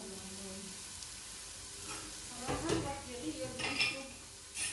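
Chicken pieces and chopped onion sizzling in oil in a nonstick pot, with a few louder scrapes and knocks about halfway through and again a little later.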